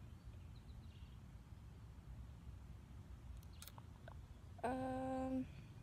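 Faint low rumble of wind and handling on the microphone, with a few light clicks. About four and a half seconds in, a bee gives a single steady buzz lasting under a second, starting and stopping abruptly.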